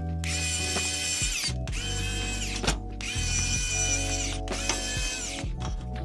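Small electric screwdriver running in four short bursts of about a second each; its pitch falls each time the motor winds down. Background music plays underneath.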